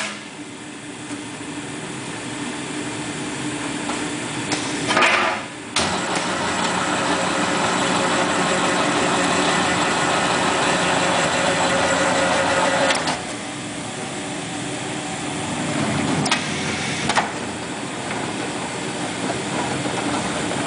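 Automated skid (pallet) indexer running through its cycle over a steady machine hum: a short burst of clatter about five seconds in, then a louder steady whir for about seven seconds that stops abruptly, and two sharp clicks near the end.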